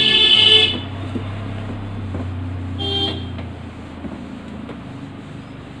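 A vehicle horn honks, ending just under a second in, over a low engine hum. A second short horn toot comes about three seconds in.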